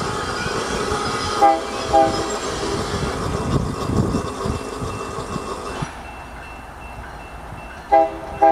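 Diesel freight locomotive's air horn giving two short blasts about a second and a half in and two more near the end, sounded as it eases through a track work zone to warn the crews. Under the first half runs a steady rumble that falls away about six seconds in.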